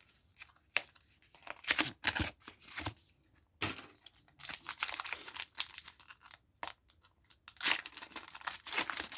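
Foil Pokémon booster pack wrapper being crinkled and torn open by hand: scattered sharp crackles, growing denser and louder near the end.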